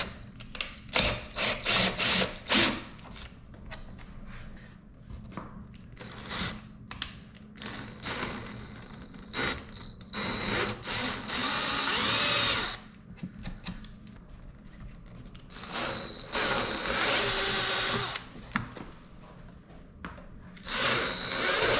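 Cordless drill run in repeated trigger bursts, drilling out a hole in a C7 Corvette's rear decklid for a spoiler mount. There are quick blips in the first few seconds, then several runs of a second or two, the longest about three seconds near the middle.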